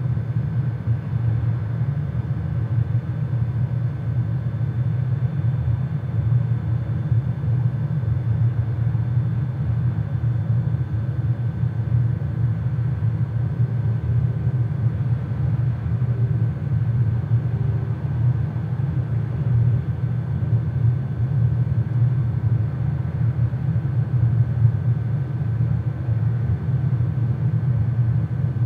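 Steady low rumble that does not change, with a faint steady high tone over it.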